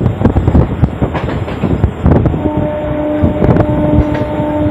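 Electric suburban local train running at speed, heard from its open doorway: the wheels clatter over rail joints and points, with wind rushing past. About halfway through, a steady pitched tone comes in and holds.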